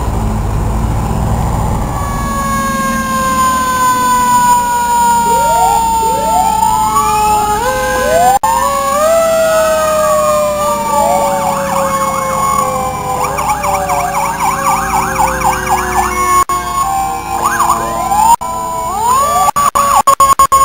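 Several fire truck sirens sounding at once as fire engines drive past: long wails that slowly fall and keep sweeping back up, overlapping one another. About halfway through, a fast yelping siren joins in. A low engine rumble is heard at the start.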